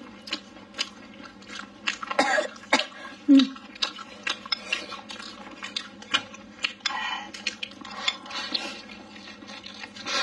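A person eating close to the microphone with chopsticks: a steady run of small clicks and smacks from chopsticks and mouth while chewing rice and braised pork with potatoes, with a short hum from the eater about two seconds in.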